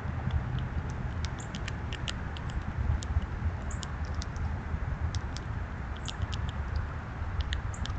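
Scattered light clicks and ticks, irregular and several a second, over a steady low rumble of outdoor ambience.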